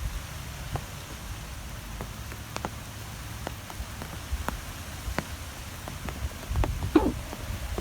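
Wind blowing, a steady low rumble, with scattered sharp ticks and patters throughout and a louder burst about seven seconds in.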